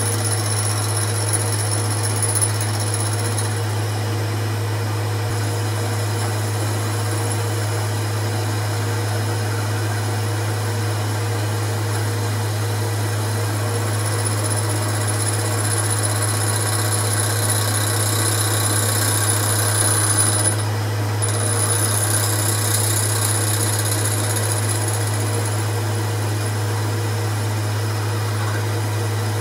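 Boxford lathe running with a steady hum while a facing tool takes a light cut across a thin aluminium plate held on a 3 mm stud, the plate vibrating under the cut. A high thin whine from the cut comes and goes, dropping out briefly about two-thirds of the way through.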